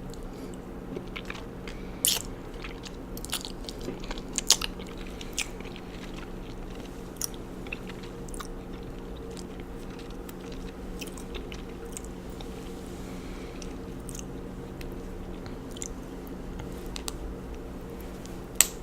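Close-miked chewing of raw honeycomb: scattered wet, sticky clicks and smacks of wax and honey, bunched in the first few seconds, with one sharp click near the end. A steady low hum runs underneath.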